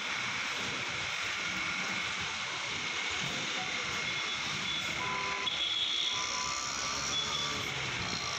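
Road traffic noise: a steady wash of vehicle sound, with a few short high beeping tones in the middle.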